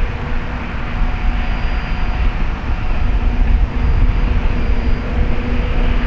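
2TE116 twin-section diesel locomotive working hard under load with a freight train on an upgrade: its 5D49 diesel engines give a deep, steady rumble, with a faint steady turbocharger whistle riding over it.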